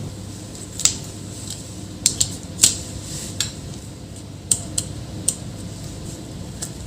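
Sharp small clicks and taps of tools and metal parts being handled during laptop disassembly, about nine spread unevenly, over a steady low hum.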